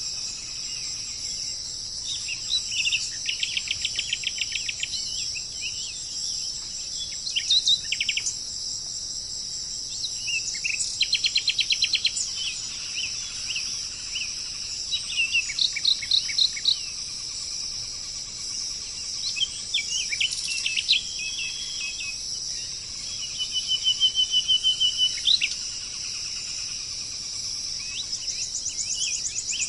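Birds calling in short runs of rapid, repeated notes, recurring every few seconds, over a steady high-pitched drone of insects.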